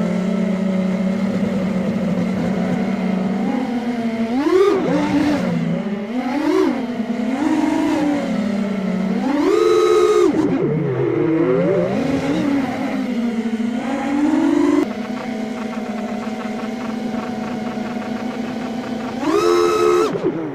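Racing drone's electric motors and propellers buzzing, the pitch repeatedly rising and falling with the throttle. There is a sudden drop in level about 15 seconds in, and a sharp climb in pitch near the end.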